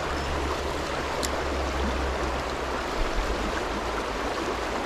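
Shallow river running fast over stones and gravel, a steady rush of water.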